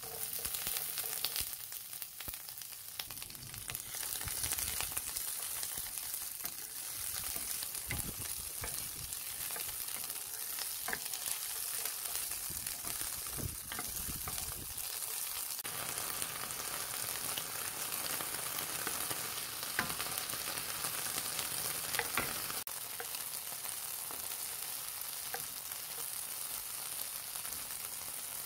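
Food frying in a pan: a steady sizzle with small crackles all through.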